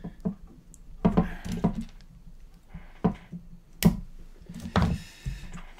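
Irregular handling clicks and knocks as a zip tie is fitted and pulled around the motor wires on a carbon-fibre quadcopter arm. One sharp click about four seconds in is the loudest.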